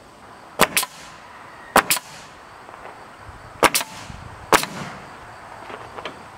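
Pneumatic coil nailer firing nails into a rough-sawn trim board: seven sharp cracks, mostly in quick pairs, about a second apart.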